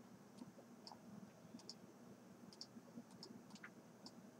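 Faint computer mouse clicks, scattered irregularly and some in quick pairs, over near-silent room tone.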